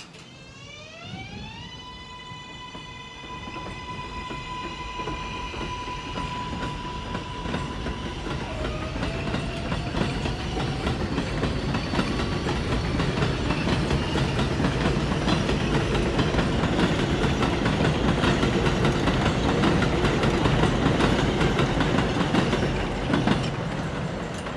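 Kawasaki R188 subway train pulling out of an elevated station. Its electric propulsion whine rises in pitch over the first two seconds in several stacked tones, then holds, with a lower tone gliding up about ten seconds in. Rumbling wheel-on-rail noise builds steadily as the cars pass and eases off near the end as the train moves away.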